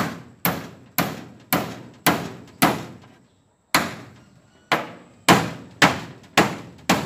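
Hammer driving nails through a corrugated galvanized iron sheet into its wooden frame: a dozen sharp strikes about two a second, each with a short metallic ring, with a pause of about a second just past the middle.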